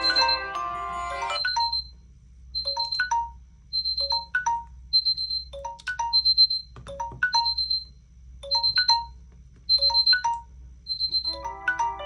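Several smartphone alarm and timer tones sound together, a jumble of overlapping melodies. About a second and a half in most of them stop, leaving one phone's tone: a short high beep and a few lower notes, repeating about every 1.3 s. Near the end several melodies overlap again.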